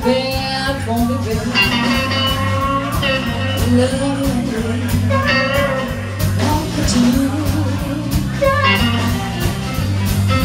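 Live blues band playing: a harmonica played into a microphone leads over electric guitar, bass guitar and a steady drum beat.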